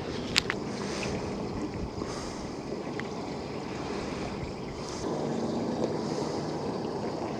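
Small boat under way: steady wind and water noise with a low motor hum, a little louder about five seconds in, and a couple of light clicks near the start.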